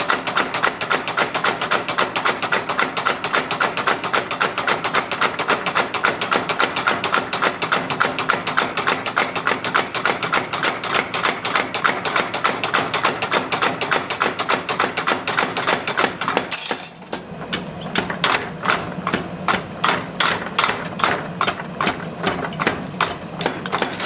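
Power hammer pounding hot steel in fast, even blows, about five or six a second. A little over two-thirds of the way in, it stops for a moment and then starts again at a slightly slower beat, with a low motor hum under it.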